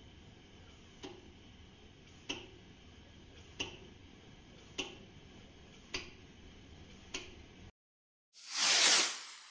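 Kerosene pressure stove burning with a faint steady hiss, under a soft tick about every 1.2 seconds. The sound cuts off suddenly about three quarters of the way through, and a loud whoosh follows near the end.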